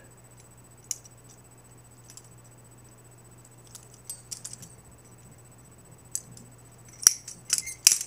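Butterfly knife (balisong) being flipped closed: its metal handles swing and clack against each other and the blade, a few scattered light clicks, then a quick run of louder clacks near the end.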